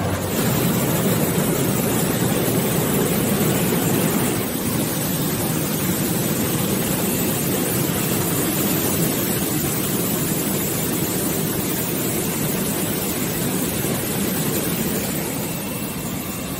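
Steady rushing, churning water from a French fries processing line's spray conveyor and air-agitated washing tank, with the line running. The noise dips slightly about four seconds in.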